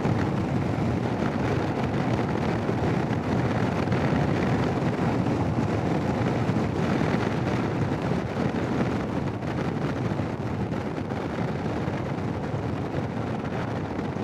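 Steady wind rush and riding noise on a helmet-mounted Sena 10C Evo microphone while riding a Royal Enfield Himalayan motorcycle, with no clear engine note standing out.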